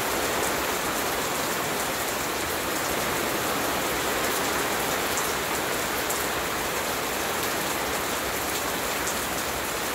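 Steady rain falling on a lawn and garden: an even, unbroken hiss.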